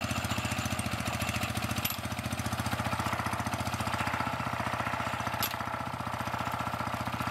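Small single-cylinder engine running steadily at idle, with an even beat of about a dozen firing pulses a second.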